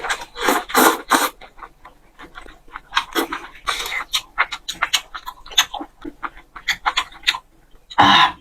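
Close-miked mouth sounds of someone eating a big mouthful of spicy hot-pot food: wet chewing and smacking in many irregular quick clicks, with short slurps between them.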